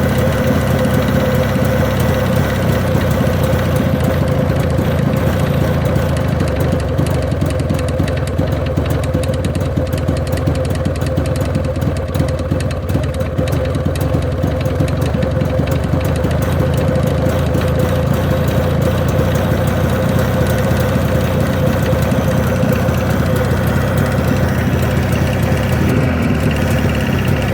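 Jawa 638 motorcycle's two-stroke twin-cylinder engine idling steadily, with the knock in the engine that the owner is recording.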